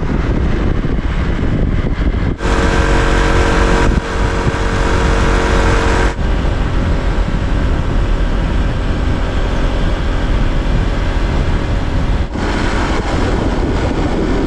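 Wind buffeting the microphone over the engine and road noise of a Honda scooter riding at speed, in several spliced stretches, with sudden changes in the sound about two and a half, four, six and twelve seconds in.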